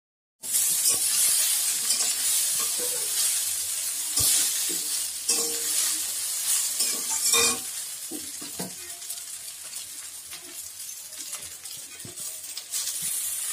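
Boiled noodles sizzling in hot oil in a metal kadai (wok) as they are stir-fried, with a metal spatula scraping and knocking against the pan. The sizzle starts suddenly about half a second in and is louder in the first half, easing off in the second.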